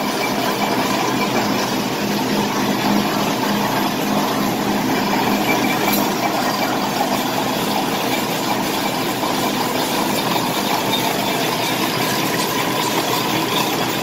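Automatic cutlery flow-pack wrapping machine running: a steady, dense mechanical running noise with a faint steady hum, even throughout.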